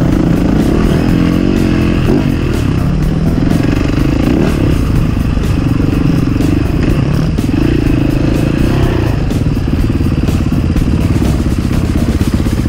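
Enduro motorcycle engine running hard as the bike is ridden, its revs changing several times.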